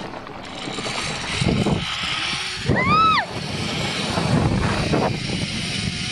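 Zipline trolley pulleys running along the steel cable: a steady whirring rush. About three seconds in, a short, loud, high-pitched squeal rises and falls.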